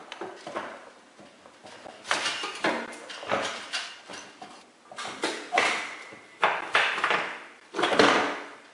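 Irregular metal clanks and rattles as the end of a garage door's TorqueMaster spring tube is handled and seated in its steel end bracket by hand: about a dozen knocks, the loudest near the end.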